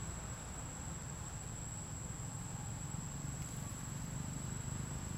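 Forest insects singing one steady, high-pitched tone without a break, over a low rumble.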